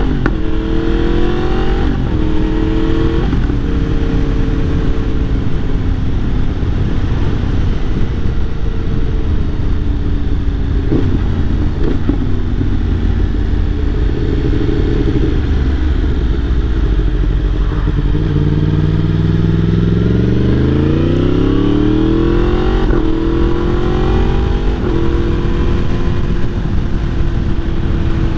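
Yamaha MT-10's crossplane inline-four running through an Akrapovic exhaust while riding. The engine note climbs with the throttle and drops back in quick steps at the quickshifter gear changes, several times over, with one long rising pull about two-thirds of the way through.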